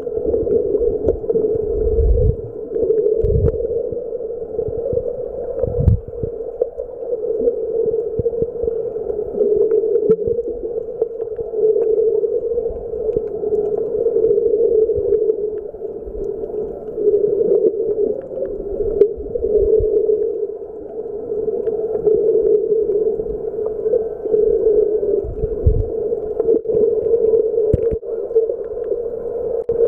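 Muffled underwater sound picked up by a camera held below the surface: a steady drone, with scattered low thumps from movement in the water.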